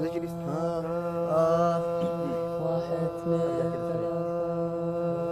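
Men's voices singing a cappella in layered parts. A steady drone note is held underneath while another voice sings a bending melodic line above it, coming in just after the start and again midway.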